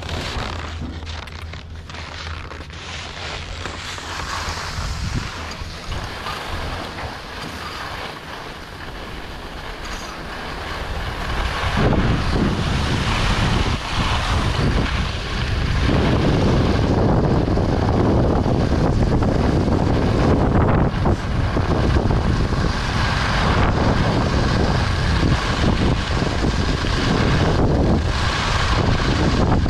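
Wind rushing over the microphone with the hiss of skis sliding over snow during a downhill ski run. It gets markedly louder and deeper about twelve seconds in.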